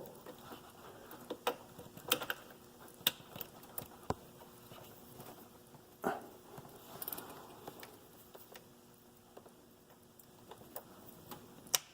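Scattered light metallic clicks and taps as manual-gearbox parts (fifth gear, slider and shift fork) are handled and fitted by hand, with a faint rustle partway through and one sharper click near the end.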